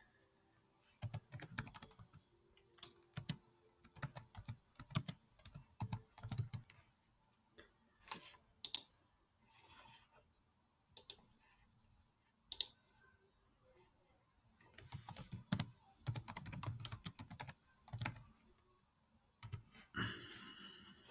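Typing on a computer keyboard in quick runs of key clicks, with a few single clicks in the pause between the runs.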